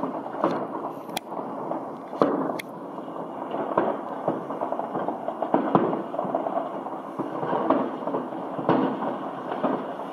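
Many fireworks going off at once: a continuous rumble and crackle of rockets and firecrackers, with louder single bangs at irregular moments.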